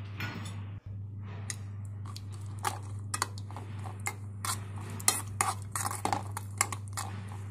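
A metal spoon clinking and scraping against a small metal kadai in irregular quick clicks, stirring cashews and raisins frying in ghee. A steady low hum runs underneath.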